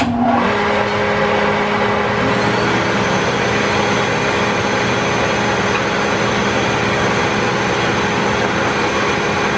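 Table-mounted router switched on and running steadily at full speed, a constant motor whine with no wood being fed yet.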